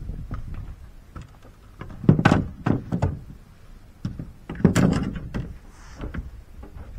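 Knocks and thuds on a boat deck as a fishing rod and gear are handled, with two louder clusters of knocks about two and five seconds in and lighter clicks between them.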